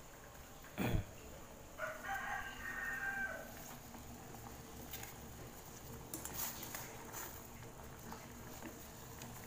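A rooster crows once, about two seconds in, shortly after a sharp thump; light clicks follow later, fitting a spoon scraping in a saucepan.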